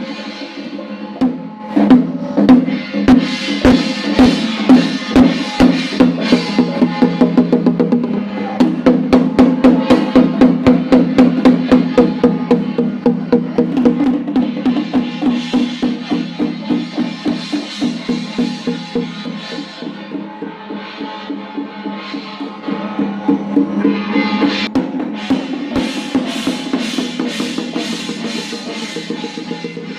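Ceremonial percussion: drums struck in a fast, steady rhythm over a sustained ringing tone, loudest in the first half and swelling again near the end.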